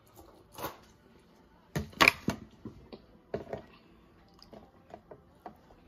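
Children eating snacks: scattered sharp clicks and short crunchy bursts of chewing and handling, the loudest cluster about two seconds in.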